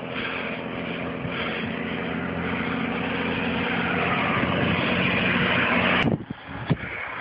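Motor vehicle engine humming at a steady pitch, mixed with wind and road noise, growing louder for about six seconds, then dropping off suddenly, followed by a few knocks.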